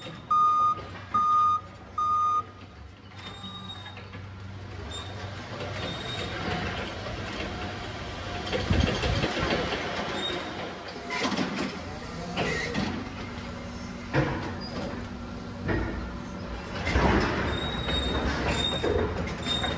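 Forklift reversing alarm beeping three times, about one beep every three-quarters of a second, then stopping; the forklift then drives on with a steady rumble, with clunks and rattles now and then.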